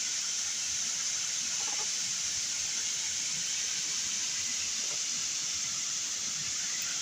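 Steady rushing of flowing water, an even hiss that does not change.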